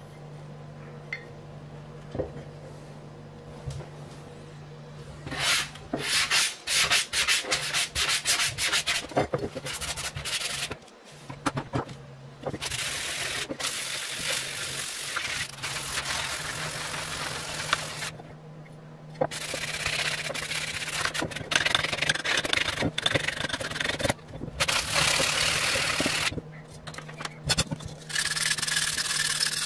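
Paint being hand-sanded off the metal gong of a GEC 64d telephone bell set with a sanding sponge and then steel wool: scratchy back-and-forth rubbing in several stretches broken by short pauses, after a few quieter seconds of handling.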